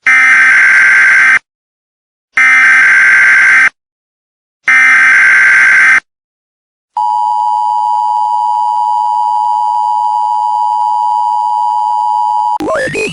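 Emergency Alert System tones: three bursts of the digital SAME header data tones, each about a second long with a second's gap between, then after a short pause the steady two-tone EAS attention signal for about five and a half seconds. Near the end the tone is cut off by a sudden loud, harsh noise.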